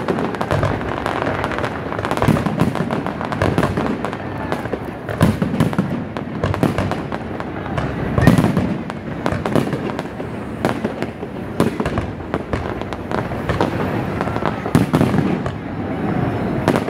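Aerial fireworks display: shells bursting in quick succession, a dense run of bangs and crackles with no break, a few bangs standing out louder.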